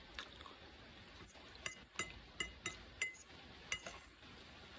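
Metal fork clinking against a glass plate while scooping up food: about six short, ringing clinks in the space of two seconds.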